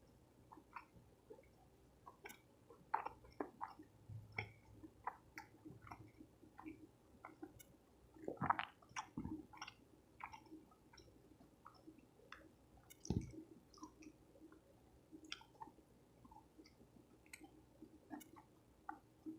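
A person chewing soft tacos, with irregular wet mouth clicks and smacks, and a couple of louder bites or smacks about midway and two-thirds of the way through.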